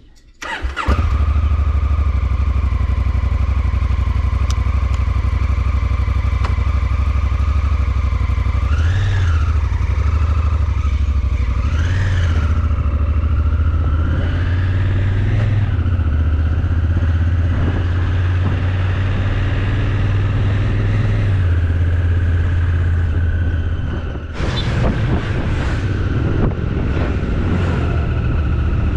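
Motorcycle engine running steadily with a deep, low rumble. It comes in suddenly about a second in, and its sound changes briefly near the end.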